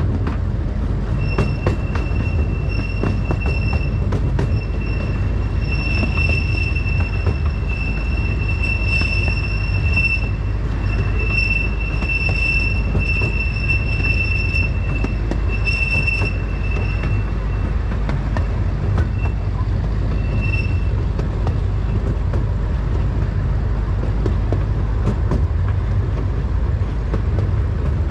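Small park railroad train rolling on its track with a steady low rumble and clicks from the rail joints. Its wheels squeal in a high, steady tone that comes and goes from about a second in until about twenty seconds in, as on a curve.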